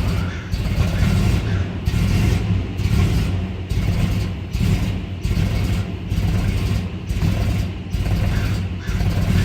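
2003 Dodge Ram 1500's 5.7-litre V8 idling roughly, its running swelling and sagging unevenly about once a second. The rough idle and dead throttle turned out to come from a 2-inch crack along the inside of the intake manifold.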